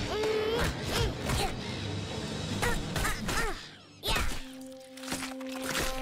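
Cartoon scuffle sound effects: a string of short squawk-like calls and sharp hits, the loudest hit about four seconds in. From about four and a half seconds in, a held musical chord takes over.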